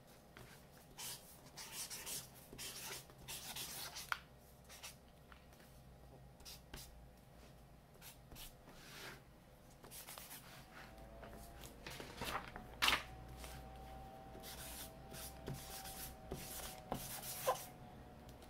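Fat-tipped paint marker scraping across black sketchbook paper in quick, irregular strokes as letters are tagged, with one sharper stroke about thirteen seconds in. A faint steady tone runs beneath from about halfway through.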